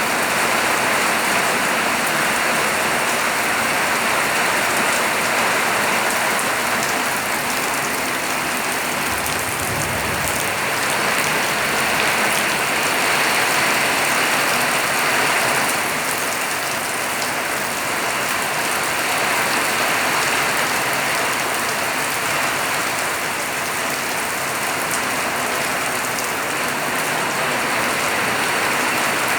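Steady rain falling and pattering on surfaces, an even, continuous hiss.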